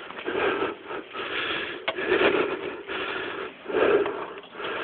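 A person's heavy breathing close to the microphone, a noisy breath roughly once a second.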